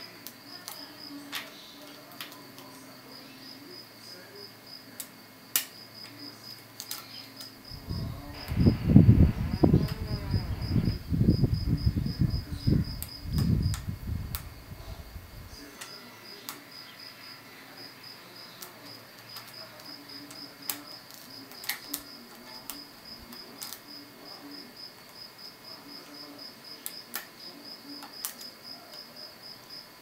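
Faint scattered clicks of a pick and tension wrench working the pins of a brass Vachette 2000 euro cylinder, over a steady high, rapidly pulsing chirp. For several seconds in the middle a louder, uneven low rumble covers them.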